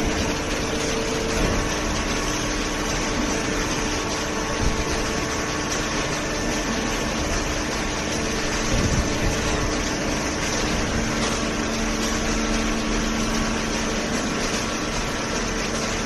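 Hydraulic cardboard baler and its infeed conveyor running: a steady machine noise with a few constant humming tones.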